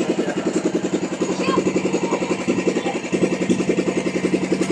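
A small engine running steadily, with a rapid, even pulse.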